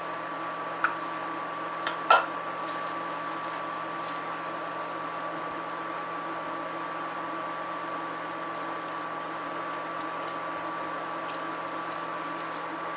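Steady hum of an electric cooktop with a faint high whine, heating a stainless steel pot of milk, with a couple of light clicks about two seconds in.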